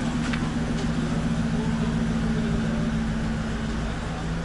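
Steady low hum of a vehicle engine idling, two even low tones over a rumble.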